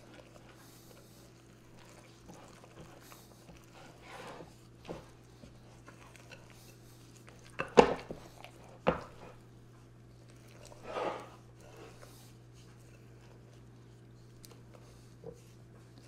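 Wooden spoon folding thick muffin batter in a mixing bowl: soft scraping and squelching strokes, with two sharp knocks of the spoon against the bowl about eight and nine seconds in. A steady low hum runs underneath.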